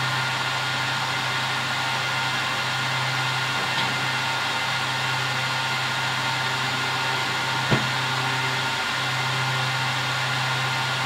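Cisco UCS 6296UP fabric interconnect running just after startup, its cooling fans giving a loud, steady rushing noise with several constant whining tones over a low hum. One short click about two-thirds of the way through.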